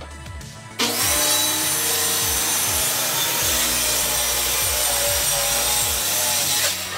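Corded circular saw starting up about a second in and cutting steadily through a plywood sheet along a straightedge guide, with a high whine over the cutting noise, then stopping just before the end.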